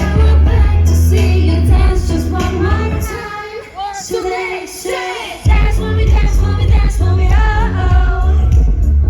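Live K-pop performance over the concert sound system: a girl group's voices sing over a heavy, bass-driven pop track. About three seconds in the bass and beat drop away, leaving the vocals thinner, then crash back in about two and a half seconds later.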